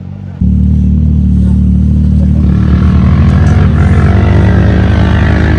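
Off-road vehicle engine running loud and close, starting abruptly about half a second in, with the sound building higher in pitch from about halfway through.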